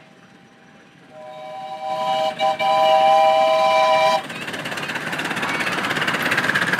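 Miniature steam locomotive sounding its whistle: a steady three-note chord held for about three seconds, broken twice briefly, then cut off sharply. After it comes a steadily rising running noise as the locomotive and its train come past.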